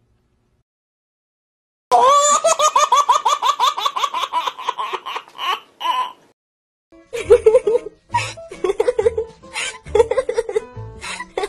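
About two seconds in, a baby giggles in a rapid, even run of laughs lasting about four seconds. After a short gap, a young woman laughs in bursts, with low thumps under her laughter.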